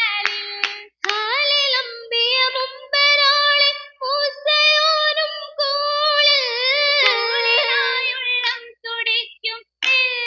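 Girls singing an Oppana song in chorus, holding long notes through the middle, with sharp rhythmic hand claps near the start and again in the last couple of seconds.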